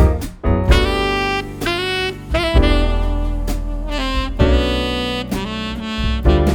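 Instrumental music: a melodic lead line changing notes over a sustained bass, with drum hits.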